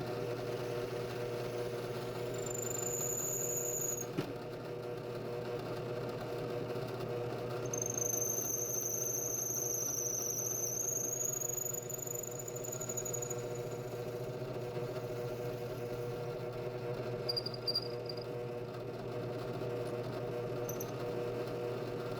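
A machine hums steadily and evenly, with a thin high-pitched squeal that wavers in pitch twice, briefly about three seconds in and again for several seconds in the middle.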